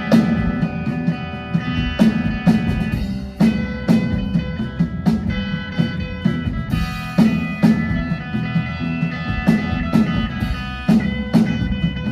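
Live rock band playing an instrumental passage between sung lines: guitar over a steady drum-kit beat.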